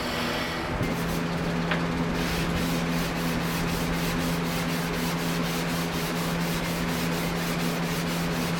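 Belt grinder sanding steel: a steady motor hum that comes up about a second in, with a continuous abrasive rasp and a fast, regular pulse.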